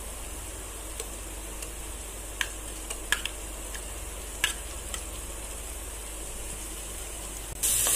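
Frying onions, mint and chicken sizzling faintly in a metal pot, with a few sharp clicks of a spoon against the pot as ginger-garlic paste is scraped in. Near the end a much louder sizzling hiss starts suddenly.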